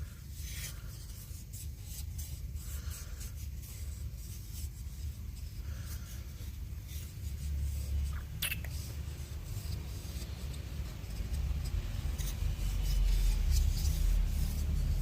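Light intermittent scraping and rubbing on wood, with scattered small ticks, one sharper scrape about halfway through, and a low rumble that grows louder near the end.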